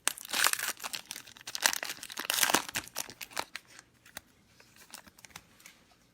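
Wrapper of a Donruss Optic baseball card pack being torn open and crinkled: a dense run of crackling and tearing for about three and a half seconds, then only a few faint crackles.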